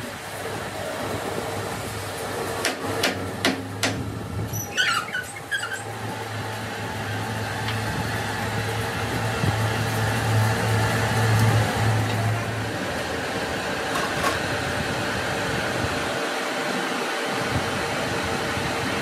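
Metal lathe running with a truck drive shaft's universal-joint yoke spinning in its chuck: a steady mechanical hum, with a few sharp clicks about three seconds in and a short falling squeal near five seconds.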